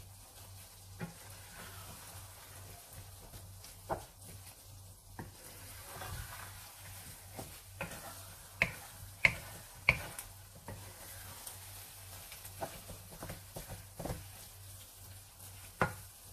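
Wooden spatula stirring and folding thick sticky rice cooking in coconut milk and brown sugar in a nonstick pan. A soft sizzle runs under scattered sharp taps of the spatula against the pan; the loudest are three in quick succession about nine seconds in.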